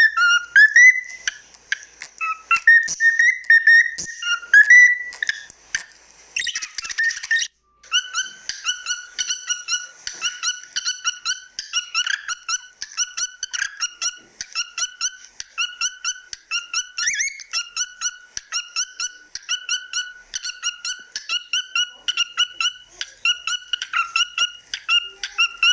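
Cockatiel whistling and chirping: varied warbling notes at first, a short rush of noise about six seconds in, then rapid, evenly repeated chirps, about two a second.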